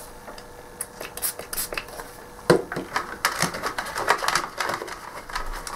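Small clicks and scratchy rubbing from tools and parts being handled on a workbench beside a circuit board. There is one sharp knock about two and a half seconds in, and a denser run of scratching after it.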